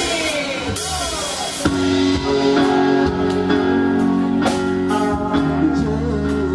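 A live pop band starts a slow ballad: steady held chords over bass with regular drum and cymbal hits, coming in fully about a second and a half in over crowd noise. A male voice starts singing near the end.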